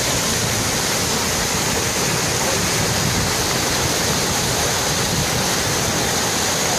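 Floodwater rushing with a steady, unbroken noise.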